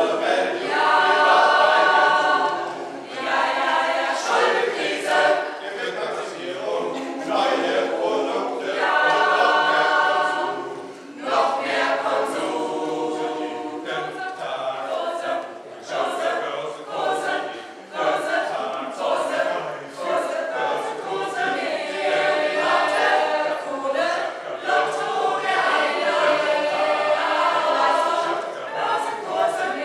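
Mixed choir of men's and women's voices singing together in phrases, with short breaths between them.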